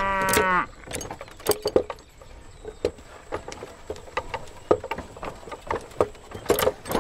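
A cow moos once, ending about half a second in, then a run of irregular light clicks and taps follows.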